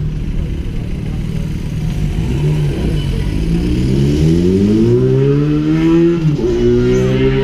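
A motor vehicle's engine idling, then pulling away with its pitch rising, dropping at a gear change about six seconds in and rising again.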